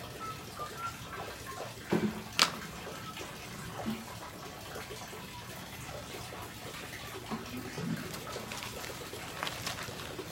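Water running steadily through a small clear-plastic river flow model fed by a hose at about 1.65 litres a minute. A couple of knocks and a sharp click come about two seconds in.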